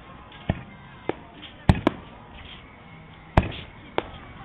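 Aerial firework shells bursting overhead: about six sharp bangs at irregular intervals, including a quick double bang.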